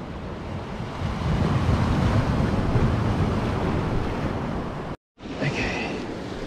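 Surf washing against a rocky shoreline, with wind buffeting the microphone; it swells louder about a second in. The sound cuts out for a moment near the end.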